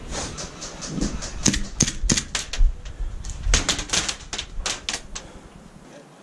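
Airsoft gunfire in an exchange: an irregular run of sharp clicks and cracks, some in quick clusters, thinning out near the end.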